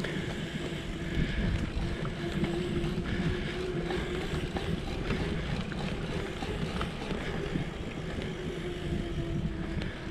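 Bicycle rolling along a paved trail, heard through a GoPro Hero 7 Black with wind rushing over its microphone: a steady rumble of the tyres on asphalt with a steady hum.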